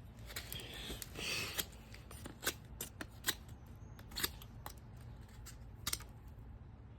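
Knife whittling a very hard stick: a scraping stroke over the first second and a half, then about half a dozen sharp, irregular clicks as the blade cuts into the wood.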